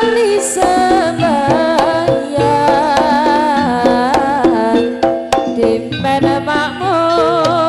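Live jaranan music: a melodic lead moving in wavering, stepwise notes over a steady held low tone, with drum strikes scattered through it.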